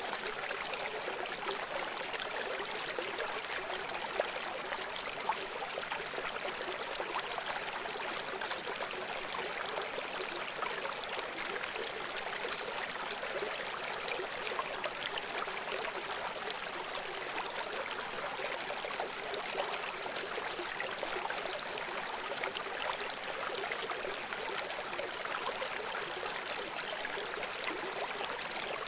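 Steady running water, like a brook: an even, unbroken rushing hiss with almost no low rumble.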